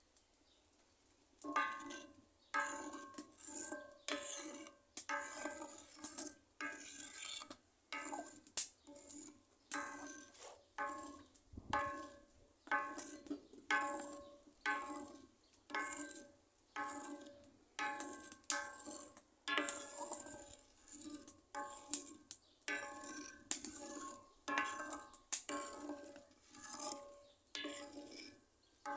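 Background music with a steady beat: the same cluster of notes struck a little more than once a second, starting about a second and a half in.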